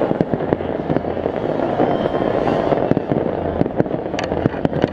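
Aerial fireworks bursting: a rapid, irregular string of sharp bangs and crackles over a steady din, with a denser cluster of cracks near the end.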